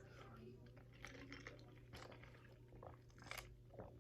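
Faint close-up chewing of chicken wings, with scattered wet mouth clicks and one sharper click about three and a half seconds in.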